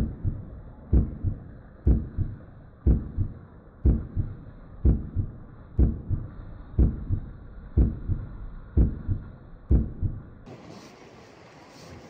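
Heartbeat sound effect: a slow, dull double thump (lub-dub) about once a second, eleven beats in all, stopping about ten and a half seconds in.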